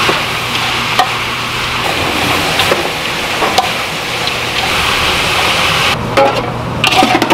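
Gloved hands tossing shredded raw vegetables in a large stainless steel basin: a steady rustling hiss with scattered light clicks against the metal, over a low steady hum. About six seconds in, a flat metal scraper scoops the vegetables, giving sharper knocks and brief metallic rings.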